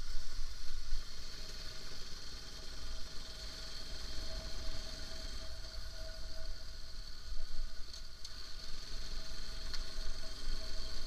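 Motorcycle engine running steadily at low road speed, heard from the rider's seat, with a low rumble underneath and a thin steady high whine alongside.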